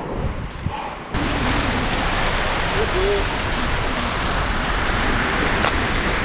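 Steady hiss of surf breaking on the shore mixed with wind on the microphone; about a second in it jumps louder and brighter. One sharp click sounds near the end.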